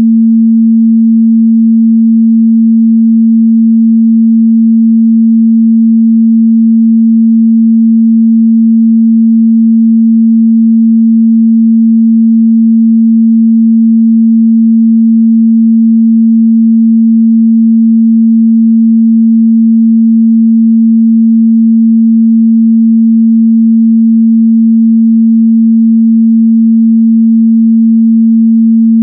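Continuous pure 226 Hz sine-wave test tone, a steady mid-bass hum held at one pitch and a constant loud level.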